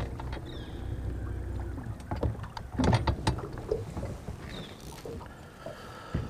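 Electric trolling motor humming steadily as it moves the boat, stopping about two seconds in. Then a cluster of sharp knocks and clatter on the aluminium boat, the loudest sounds, with a few softer knocks later.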